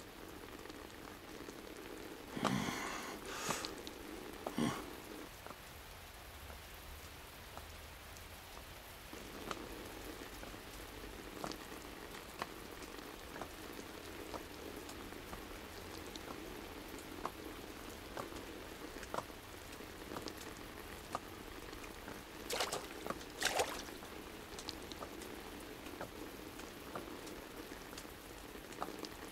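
Steady rain falling, with many scattered drops ticking, and a few louder noises about two to four seconds in and again about three quarters of the way through.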